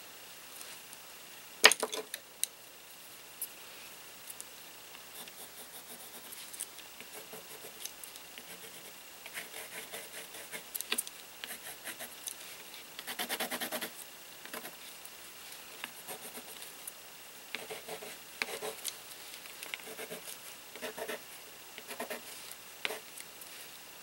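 Colored pencil scratching and rubbing on painted paper in short shading strokes, with a quicker run of strokes about halfway through. A single sharp click about two seconds in is the loudest sound.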